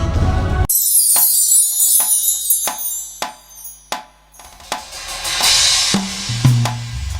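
Praise band music: the keyboard and bass stop abruptly under a cymbal crash about a second in, leaving a drum kit playing single strikes about two a second that fade away. A cymbal swell follows, and bass notes come back in near the end as the band restarts.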